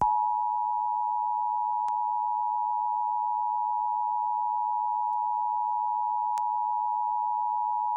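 Emergency Alert System attention signal: the steady two-tone alert (853 and 960 Hz sounded together), held for about eight seconds and then cutting off, as part of a required monthly test.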